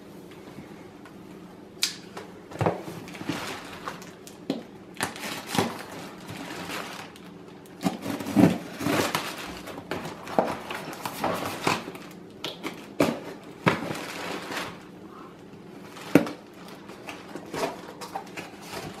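Small cardboard box being handled and cut open: irregular scrapes, knocks and rustles of cardboard and packing tape as it is lifted, the tape slit and the flaps pulled open.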